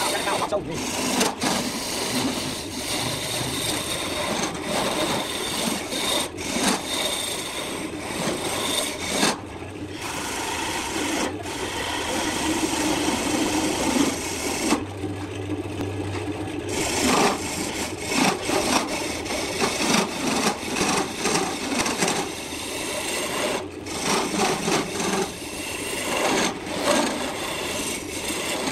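Wood lathe running while a turning tool hollows out the inside of a spinning wooden piece: a continuous scraping cut as shavings spray off, broken by short pauses where the tool eases off. About halfway through, the cutting stops for a couple of seconds, leaving only the lathe motor's low hum.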